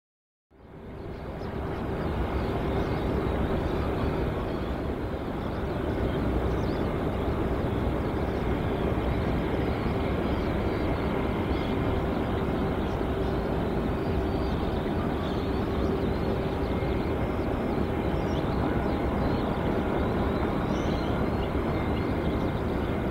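Jet airliner engines running steadily: a constant rumble with a steady hum. It fades in out of silence about half a second in.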